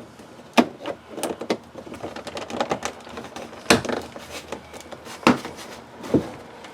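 Plastic trim cover being pressed into a GMC Yukon's door handle: light clicks and rattles, with four sharp snaps spread through.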